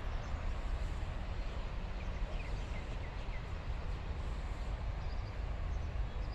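Outdoor background noise with a heavy low rumble like wind on the microphone, and a few short bird chirps about two to three seconds in.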